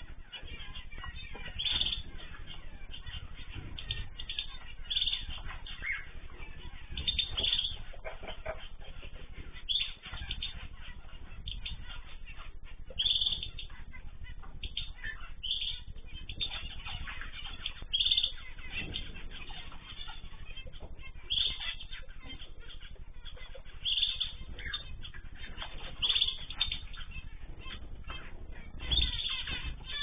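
Small cage birds in a mixed aviary of zebra finches, canaries, goldfinches and cockatiels, giving short sharp chirps every second or two over a steady low hiss. The sound is narrow and dull-topped, as through a security camera's microphone.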